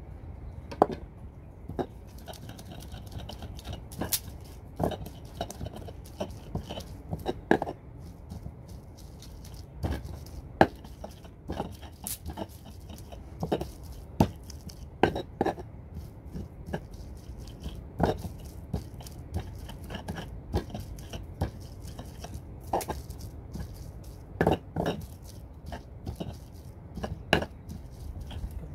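Stone pestle pounding and grinding chili and other ingredients in a stone mortar, with irregular sharp knocks of stone on stone, roughly one or two a second.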